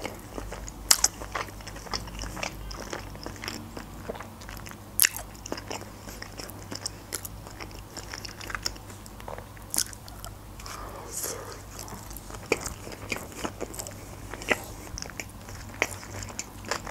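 Close-miked chewing of a sushi roll with cucumber: wet mouth clicks, smacks and crunches at irregular intervals.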